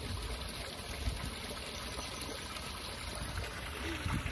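Steady outdoor hiss with wind rumbling unevenly on the microphone.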